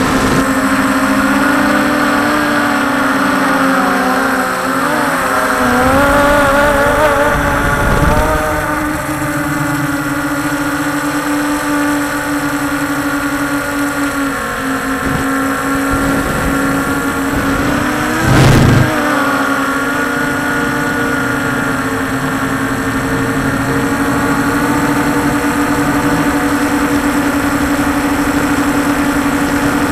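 Quadcopter drone's electric motors and propellers humming steadily, heard from the camera on board. The pitch wavers a few seconds in, then holds and creeps up near the end, with one brief louder burst about two-thirds of the way through.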